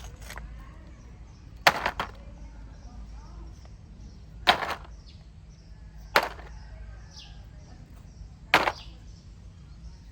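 A series of sharp knocks, about one every two seconds, over a low steady rumble.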